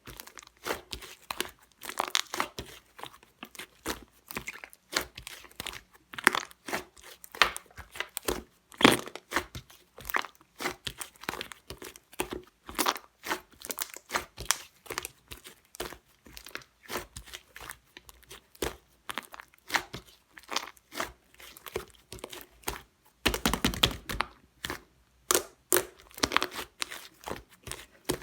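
Tangerine being peeled and pulled apart by hand: a run of short, crackly tearing and crinkling sounds, with a denser, louder stretch about 23 seconds in.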